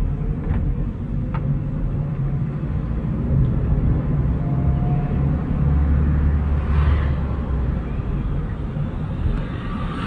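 Car driving along, heard from inside the cabin: a steady low rumble of engine and road noise, with a few faint rattling clicks in the first second or two.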